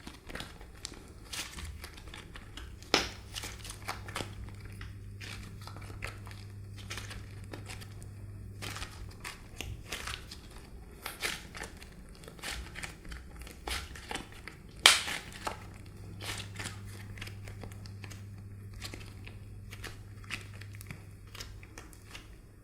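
Crinkling and crackling from hands working slime with mixed-in shapes, a dense run of small crackles with two sharper clicks, about 3 and 15 seconds in.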